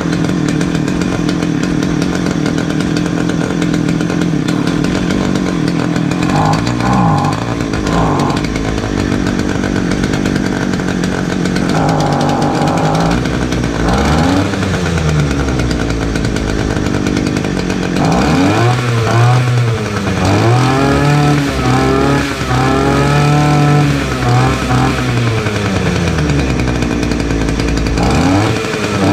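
Titan petrol multi-tool's two-stroke engine running after a hard-starting fault was worked on (new fuel lines and spark plug), first at a steady speed, then revved up and down again and again from a little past halfway.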